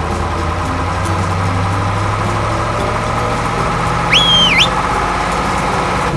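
Vehicle engine idling with a steady low rumble, and a brief high whistle that dips and rises about four seconds in.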